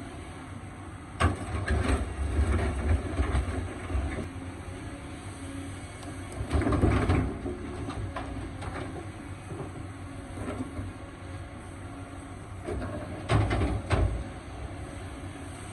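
Excavator at work: a steady low engine rumble broken by heavy knocks and clanks about a second in, again around seven seconds, and near the end.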